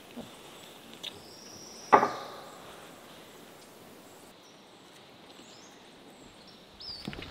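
Quiet outdoor ambience with one sharp knock about two seconds in, ringing briefly, and a thin high whistle just before it.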